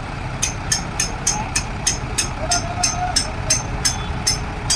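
Concrete mixer running: a low steady rumble with a sharp, regular clicking about three times a second, which pauses briefly near the start.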